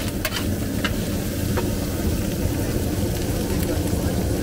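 Chopped meat sizzling on a hot steel griddle, with a few sharp clicks of a metal spatula against the plate in the first two seconds, over a steady low rumble.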